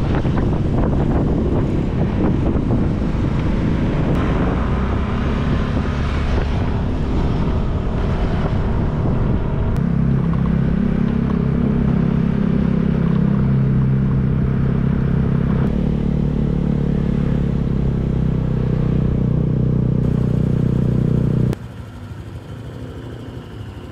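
Motor scooter running at riding speed, its engine and road and wind noise steady and loud. The sound drops off abruptly to a much quieter background about two and a half seconds before the end.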